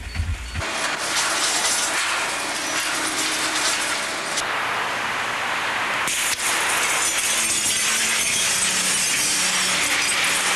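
Demolition noise: a steady, dense crunching and crackling of breaking debris and glass, with a brief dip about six seconds in.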